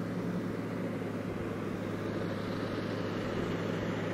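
Steiger Cougar tractor's Scania V8 diesel engine working under load with a cultivator, a steady drone growing slowly louder as the tractor approaches.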